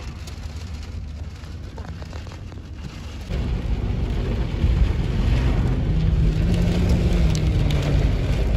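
Thunderstorm rain and wind: a steady wash of noise with a deep low rumble that turns markedly louder about three seconds in.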